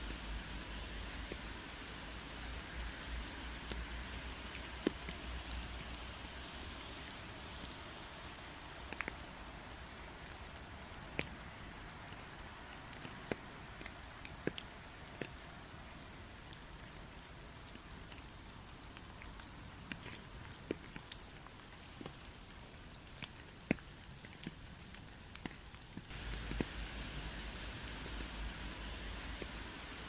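Rain falling steadily: an even hiss with scattered drops ticking on a surface. It gets a little louder about 26 seconds in.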